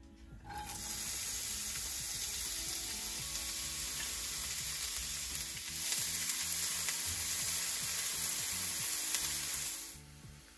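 Diced onion sizzling in hot oil in a frying pan as it is tipped in and stirred with a spatula. The sizzle starts about half a second in, gets a little louder around the middle and cuts off suddenly near the end.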